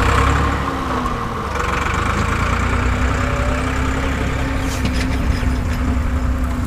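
Small diesel engine of a tubewell boring rig idling steadily, a constant low rumble with a steady hum.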